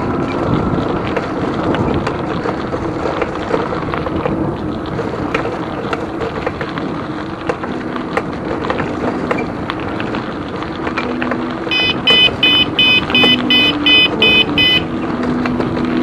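Wind and mountain-bike tyre noise while riding. About twelve seconds in, a bicycle bell rings rapidly, about nine rings over three seconds, to warn someone ahead.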